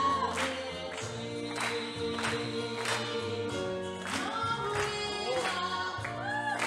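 Slow rumba music: a singing voice over held chords, with a steady beat of about five strokes every three seconds.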